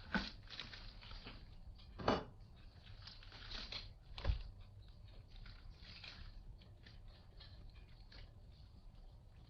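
Three sharp knocks about two seconds apart, among light clicking and rustling of things being handled.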